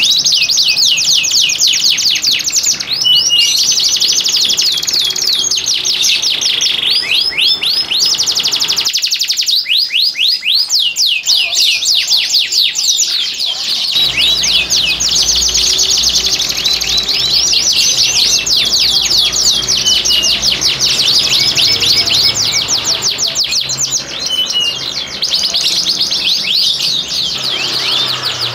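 Several domestic canaries singing together in long, fast trills of rapidly repeated high notes, broken by short chirps, with barely a pause. This is the excited song of male canaries in breeding condition.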